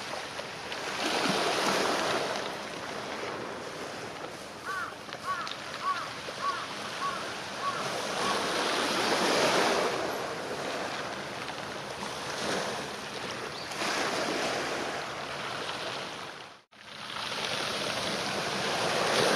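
Small waves washing onto shore rocks, the rushing swelling and easing every few seconds.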